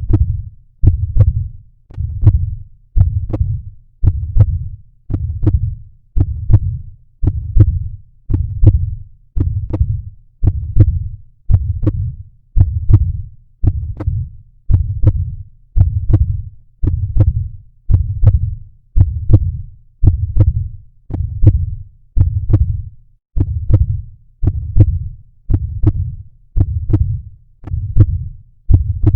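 Recorded human heartbeat, a steady low thump at about one beat a second.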